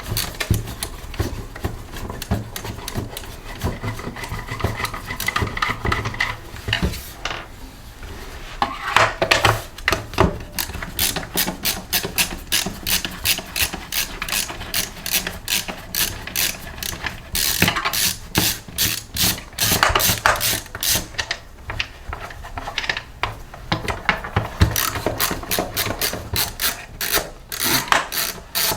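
Hand ratchet fitted with a T20 Torx bit, clicking in quick runs as the screws are backed out of the housing of a Toro 60V handheld blower.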